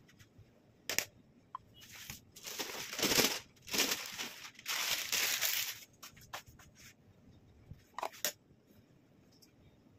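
Baking paper crinkling and rustling for a few seconds as it is peeled off a rolled sponge cake, with a sharp tap about a second in and a couple of short taps near the end.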